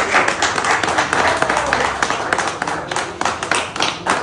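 A small group of people clapping their hands: dense, overlapping claps that thin out near the end into steadier, evenly spaced claps, with voices mixed in.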